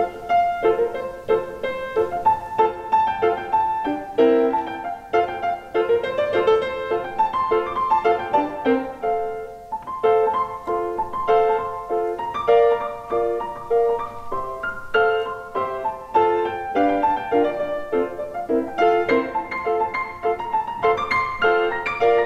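Background music led by piano: a brisk tune of quick, short notes and chords.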